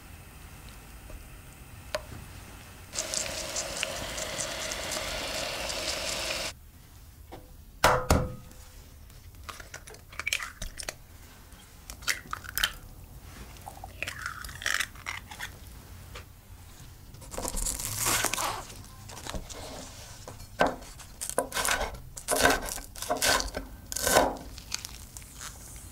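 Tomato slices sizzling in oil in a frying pan for a few seconds. About eight seconds in, an egg is cracked sharply against a glass bowl, followed by small clicks of shell. Near the end a chef's knife chops scallions on a wooden board in a quick run of cuts.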